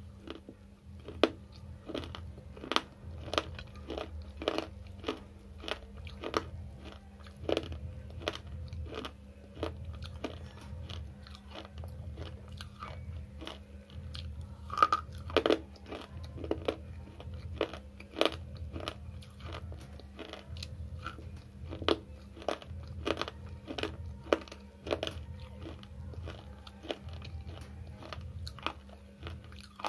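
Slate chips being bitten and chewed close to the mouth: sharp, crisp crunching cracks at an uneven pace of about one or two a second, with a louder crunch about halfway through.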